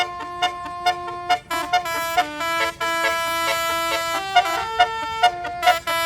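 Bus telolet horn, a set of 18 air trumpets, playing a tune. Several notes sound together and change about every half second, over a short note that pulses about twice a second.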